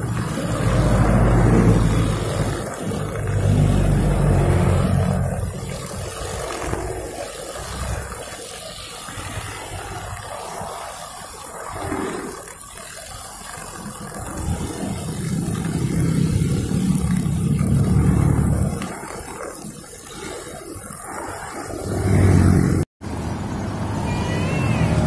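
Four-stroke Honda GX string trimmer running while cutting grass, its engine rising and falling in speed several times. Near the end the sound drops out briefly at an edit.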